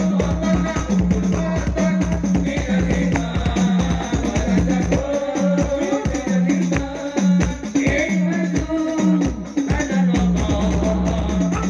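Sholawat devotional music: hand percussion keeps a steady, fast rhythm with a shaker-like rattle, and a voice sings over it. Deeper bass drum strokes grow stronger about ten seconds in.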